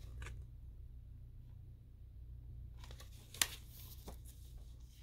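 A paper picture book being handled: faint rustles, then one sharp paper sound about three and a half seconds in as a page is turned. A steady low hum runs underneath.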